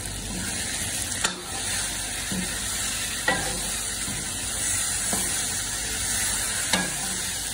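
Mutton and potato pieces sizzling as they fry in a karahi (wok), stirred with a metal ladle that scrapes and clinks against the pan about every two seconds.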